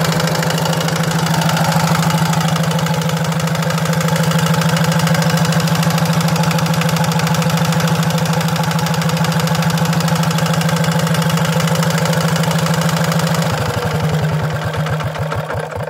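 Hatz E79 single-cylinder air-cooled diesel engine running steadily with an even firing rhythm, then slowing about thirteen seconds in and stopping at the end as it is shut down.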